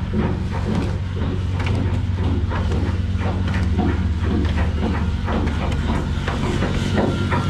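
A steady low machine hum with many irregular knocks and clanks over it, typical of shipyard work around a ship under repair.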